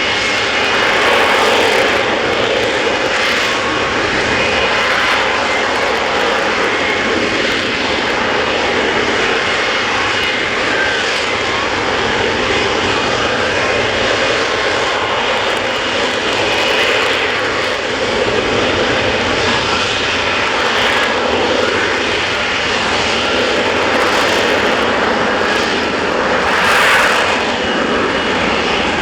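Lockheed Martin F-35B's F135 jet engine running loud and continuous, swelling and easing slightly, with a louder surge near the end.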